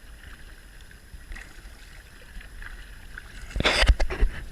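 Kayak paddling: faint water noise, then a loud paddle splash about three and a half seconds in, followed by a couple of smaller splashes.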